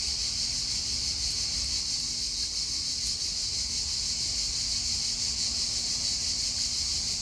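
Steady, high-pitched chirring of an insect chorus, even and unbroken throughout.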